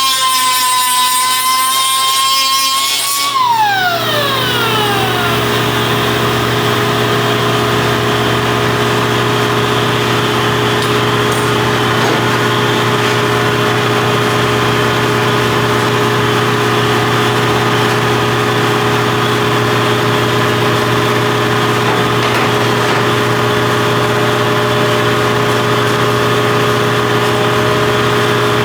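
A high-pitched machine whine cuts off about three seconds in and winds down in pitch over the next couple of seconds. A steady mechanical hum carries on underneath.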